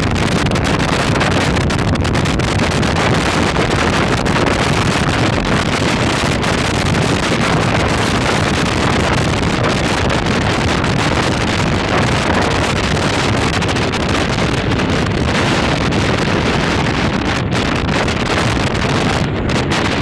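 High wind, sustained over 100 km/h, blasting across a phone's microphone: a loud, steady rush of noise with a heavy low rumble and no let-up.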